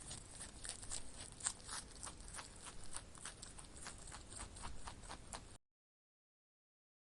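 A rabbit chewing food: a fast, irregular run of crisp crunching clicks, several a second, that cuts off suddenly about five and a half seconds in.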